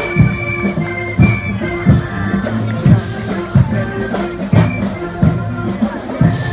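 High school marching band playing: brass holding chords over a steady beat of drum hits.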